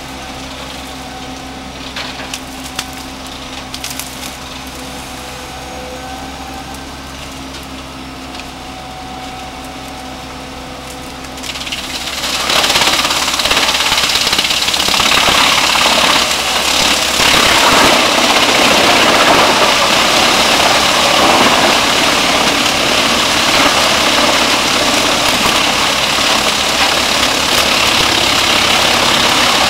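Diesel-driven Musmax wood chipper running steadily, with a few sharp cracks about two and four seconds in. About twelve seconds in, it starts chipping brush fed into it by the crane grapple, and a much louder, dense chipping noise carries on to the end.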